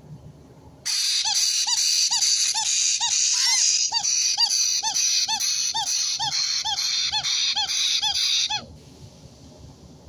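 White-bellied caique chick giving a fast run of harsh, evenly repeated calls, about three a second, typical of an unweaned parrot chick begging for food. The calls start about a second in and stop suddenly near the end.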